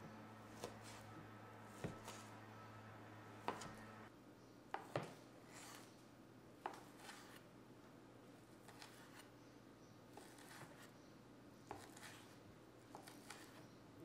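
Santoku knife slicing bacon strips on a plastic cutting board: faint, irregular knocks and taps as the blade cuts through and meets the board, a dozen or so spread over the stretch.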